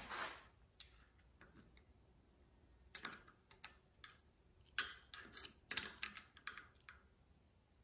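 Light, irregular metal clicks and scrapes of a thin screwdriver working inside a brass oxygen regulator body held in a vise, prying at the small washer in its seat. The clicks come in small clusters, thickest a few seconds in and near the end.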